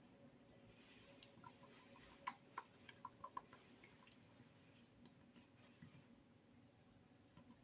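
Faint clicks and small pops from slime being squeezed and worked by hand, a quick run of them about two to three and a half seconds in, over a low steady hum.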